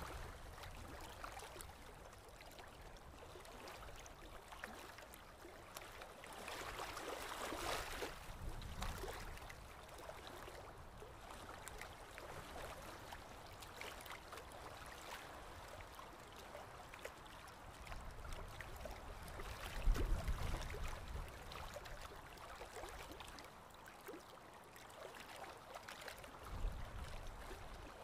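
Choppy open water lapping and splashing against a concrete seawall, a steady wash of noise, with low rumbles that peak about two-thirds of the way through and again near the end.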